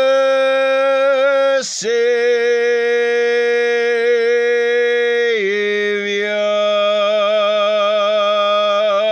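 A man singing a hymn unaccompanied, holding long drawn-out notes with a wavering vibrato. He takes a quick breath a little under two seconds in and steps down in pitch about five and a half seconds in. The final note ends abruptly near the end.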